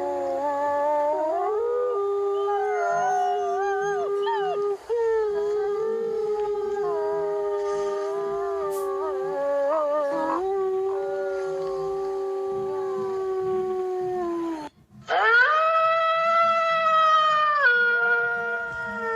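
Wolves howling in chorus: several long, overlapping howls at different pitches, each gliding slowly up and down. After a brief break about 15 seconds in, a single louder, higher howl holds its pitch and then drops near the end.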